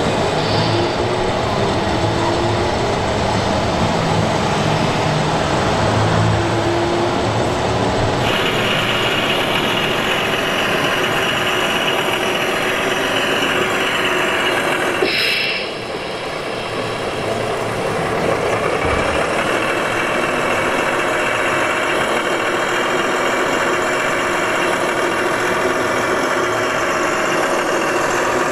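Diesel truck engine sound from the loudspeaker sound modules of 1:14-scale RC model trucks, idling and running slowly, over the steady din of a busy exhibition hall. About halfway through there is a short hiss, then the sound drops a little before settling again.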